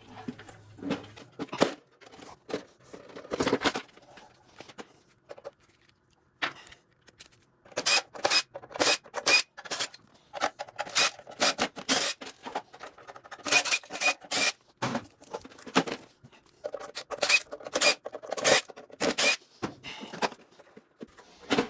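Repeated metal clanks, rattles and scrapes from taking apart a tankless water heater and working its copper heat-exchanger coils loose, in clusters of quick knocks.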